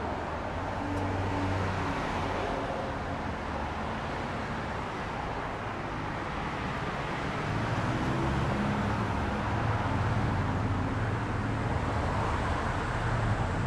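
Street traffic: cars running past with engine hum and tyre noise, growing louder in the second half.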